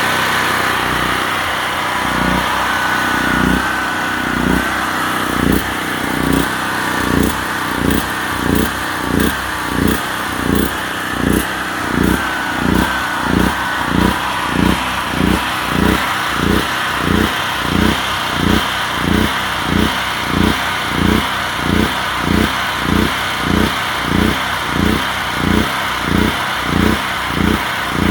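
Generac portable generator's single-cylinder engine running fuel-starved with its gas shut off, surging up and down about once a second as the carburetor drains and it begins to die.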